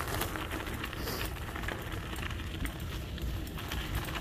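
Tyres rolling over a sandy gravel road, a steady crunch of grit full of small crackles and ticks, with wind rumbling on the microphone.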